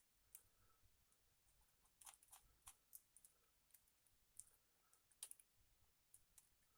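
Near silence with faint, irregular sharp clicks, a few to several a second, some paired with faint short mid-pitched sounds.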